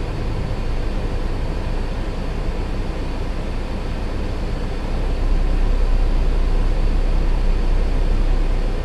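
Steady low rumble of an idling semi truck's diesel engine, growing louder and deeper about five seconds in and easing just before the end.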